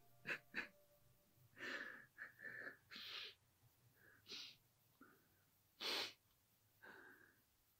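A man crying quietly: faint, irregular sobs, sniffles and shaky breaths, about a dozen short bursts.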